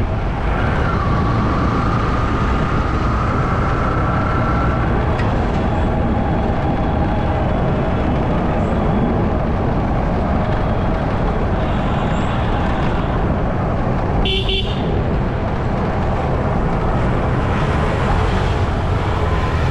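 Steady low rumble of driving through city traffic: engine, tyre and wind noise from the moving vehicle. A brief horn toot comes about two-thirds of the way through.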